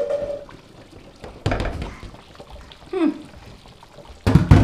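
Glass pot lid clinking with a short ring as it is lifted off a large pot of soup, then scattered knocks of cookware and two loud, deep knocks near the end.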